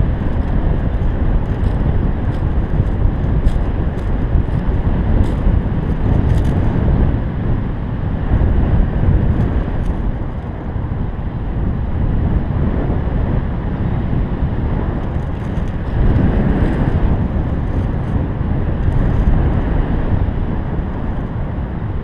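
Wind rushing over the camera microphone of a paraglider in flight: a loud, steady low rush that swells and eases.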